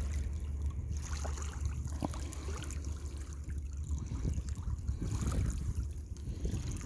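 Small waves lapping and splashing against a rocky lake bank, with a steady low rumble underneath.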